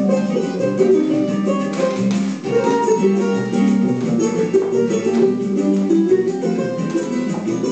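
Latin-style dance music led by plucked guitar.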